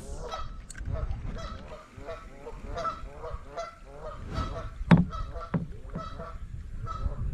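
Waterfowl honking over and over in quick succession, several calls a second, against a low rumble. A single sharp knock about five seconds in.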